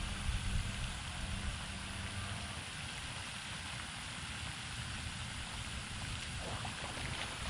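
Steady outdoor background noise with a low, even hum like a distant motor that fades out about a third of the way through. There are a few faint light ticks near the end.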